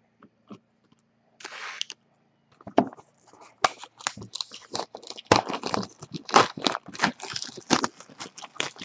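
Hands unwrapping and handling sealed sports-card boxes: crinkling and tearing of plastic wrap with cardboard scraping. The crackling comes in scattered clicks at first and turns into a dense, busy run from about three seconds in.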